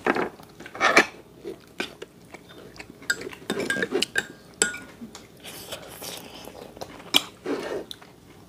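Metal forks clinking and tapping irregularly against ceramic plates and bowls at a meal, with some chewing.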